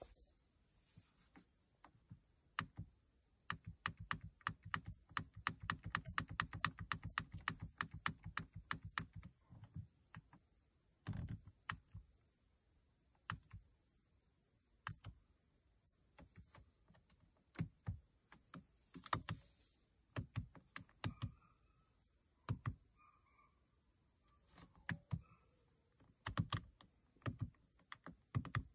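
Plastic push buttons on a Ford Fiesta's dashboard radio/Sync control panel clicking as they are pressed. There is a fast run of clicks, about five a second, lasting several seconds, then single presses every second or two. The Media and Phone buttons are being tried over and over because the hung Sync module does not respond to them.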